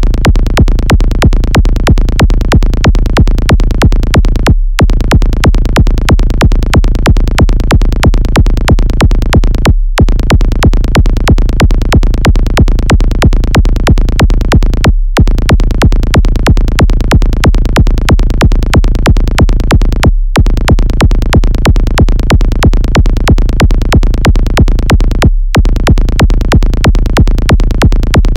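Electronic music track: fast, even synthesizer and drum-machine pulse with heavy bass, briefly cutting out about every five seconds.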